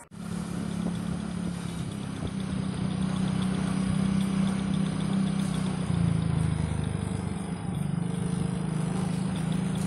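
Motor scooter engine running steadily at low riding speed, with road and wind noise; its note drops and broadens for a second or two about six seconds in, then settles back.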